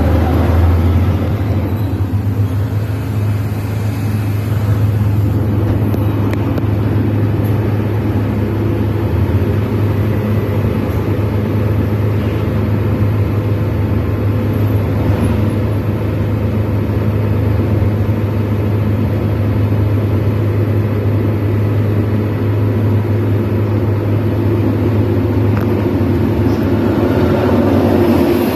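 Steady low drone of a vehicle's engine and tyre noise while driving along a paved road at a constant speed.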